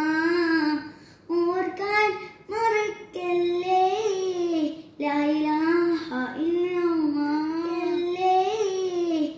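A child singing alone, holding long wavering notes in phrases with short breaks between them.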